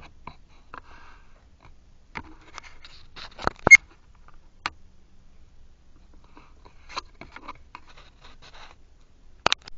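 Scattered clicks, taps and light knocks of things being handled, over faint rustling. The loudest sharp knocks come about three and a half seconds in and again just before the end.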